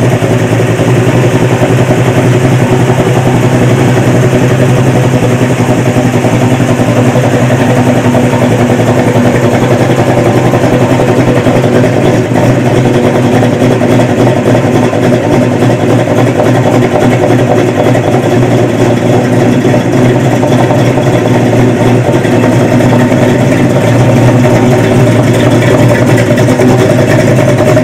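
A vehicle engine running steadily at a constant pitch, without revving.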